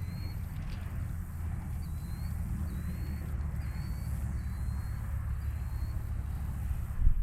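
Wind buffeting the microphone as a rough low rumble, with a short high chirp repeating about once a second in the background and a low thump near the end.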